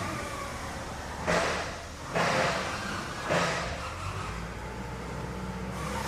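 Factory machinery running with a steady low hum, broken by three short hissing blasts about a second apart.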